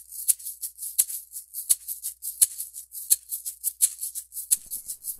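Hand-held vegetable peeler scraping the skin off a raw potato in quick repeated strokes, about four or five a second.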